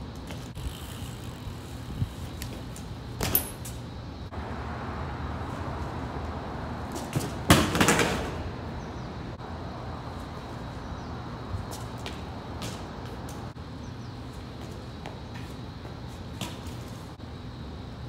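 BMX bike during flatland practice on pavement: a sharp knock, then a stretch of rolling, scrubbing tyre noise that ends in a loud clatter of the bike about halfway through, with a few light knocks after. A steady low hum runs underneath.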